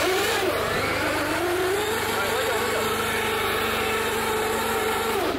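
Electric RC monster truck running at full throttle: a motor whine that rises over the first second and a half and then holds, over the scrub of its tyres spinning in place on concrete. It is a burnout; the truck cannot pull the towed car and is wearing its tread off.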